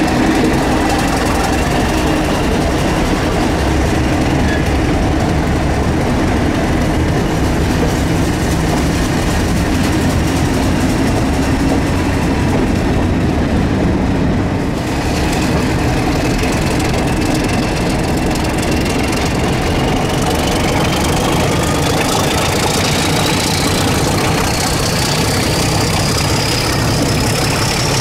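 British Rail Class 31 diesel locomotive's English Electric V12 engine running steadily as the train moves off and gathers speed. From about halfway a whine climbs steadily in pitch.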